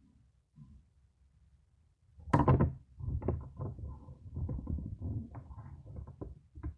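Smartphone being handled close to its microphone: a loud knock about two seconds in, then a run of rustling, clicks and small taps.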